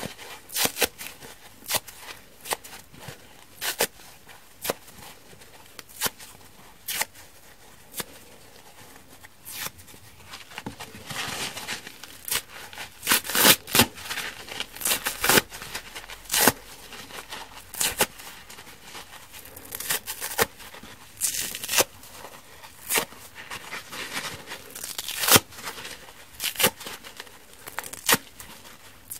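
Soft foam sides of kitchen sponges being torn apart by hand: many short rips one after another, with a few longer, denser tears around the middle.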